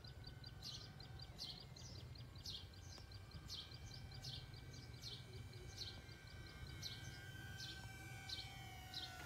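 A bird repeating short high chirps, roughly twice a second, over the faint steady whine of a distant small electric RC model plane's motor.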